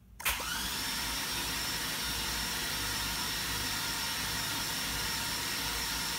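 Starter motor cranking a rebuilt GM 5.3 Vortec V8 with its spark plugs out and fuel pump disabled, so the engine spins without firing. The starter engages with a click about a quarter second in, then gives a steady, even whir while the engine is turned over to build oil pressure on its first start.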